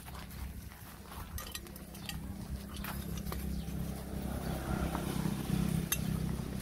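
Puppies eating off a broken ceramic plate on dirt ground, with scattered light clicks and clinks of the plate. A steady low hum runs underneath and is the loudest sound.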